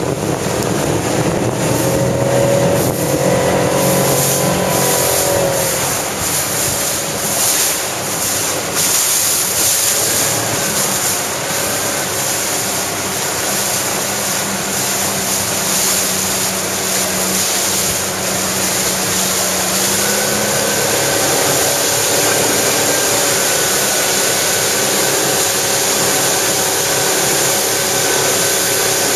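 A motorboat's engine running under way, its note shifting in pitch a few seconds in and again about twenty seconds in, with wind buffeting the microphone and water rushing past the hull.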